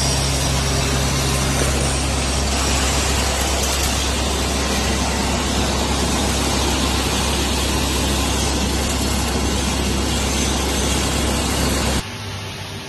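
Electric wood crusher (hammer-mill type) running steadily while dry cow dung is shoveled in and crushed: a loud constant mechanical noise with a deep hum under a continuous rush of grinding material. It drops suddenly to a quieter sound near the end.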